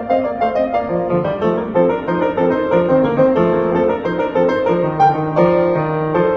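Background piano music: a run of quick notes over a steady beat.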